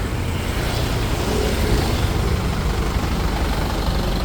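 Street traffic passing close on a wet road: engines humming under a steady hiss of tyres, swelling a little as a vehicle goes by about a second and a half in.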